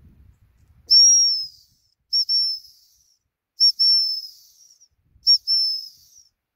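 ACME 210.5 gundog whistle blown as signals to a working springer spaniel: one long high blast, then three times a short pip followed by a longer note. Each note drops slightly in pitch.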